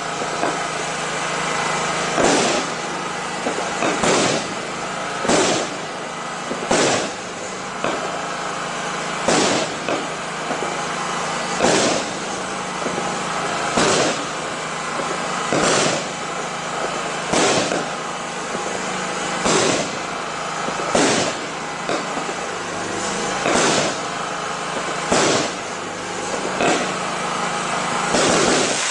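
Automatic consumer fireworks compound (Ardi Showbox Fascination) firing in sequence: a sharp bang about every one and a half to two seconds, over continuous noise.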